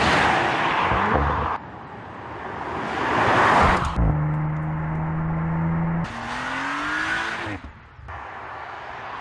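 Audi RS 5's 2.9-litre twin-turbo V6 under way: a car sweeping past with engine and tyre noise, then a steady engine drone, then the engine note rising as it pulls through a gear. The sound changes abruptly between these parts.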